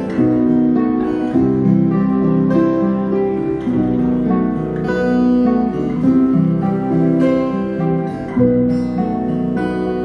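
Live band playing during a sound check: guitar and keyboard chords changing every second or so, with a red Nord keyboard among the instruments being played.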